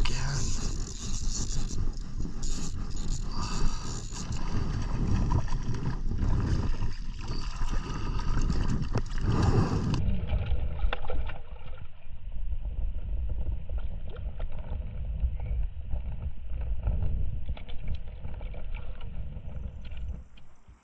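Wind rumbling on the microphone over choppy lake water lapping at a kayak, with a hooked trout splashing at the surface and scattered clicks and knocks. The sound is rough and steady, and its upper range thins abruptly about halfway through.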